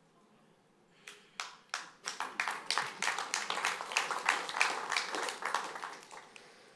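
Audience applauding: a few scattered claps about a second in, building into full applause, then dying away near the end.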